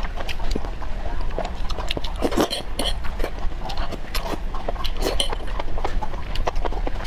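Close-miked eating sounds: wet slurping and chewing of enoki mushrooms in a spicy red sauce, with many small irregular smacks and clicks.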